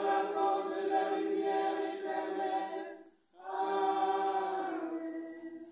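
A small congregation singing a hymn unaccompanied, in two long phrases of held notes with a short breath between them about three seconds in.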